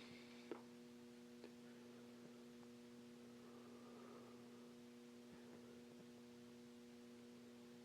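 Near silence with a faint, steady electrical hum of a few low tones, and a couple of faint ticks about half a second and a second and a half in.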